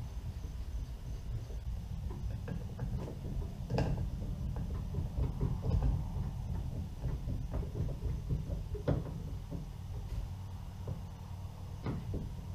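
Irregular clicks and knocks of a screwdriver and hands at a plastic Scotty mount base on a kayak's plastic deck, as self-tapping screws are turned in by hand. A steady low hum runs underneath.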